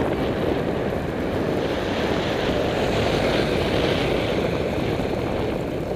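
Steady wind rushing over the microphone of a camera riding on a moving bicycle, with road rumble, and a car going by around the middle.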